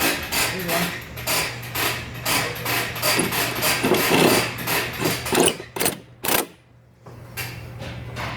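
Hand tools working on an engine bay: a fast, irregular run of metallic clicks, knocks and clanks over a steady low hum. The sound stops almost completely for a moment a little after six seconds, then a few quieter knocks follow.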